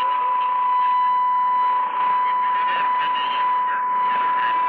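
Shortwave AM broadcast from Radio Cultura Ondas, Manaus, received on 4845 kHz by a Sony ICF-2001D receiver. A steady high-pitched whistle runs over weak, noisy programme audio and static.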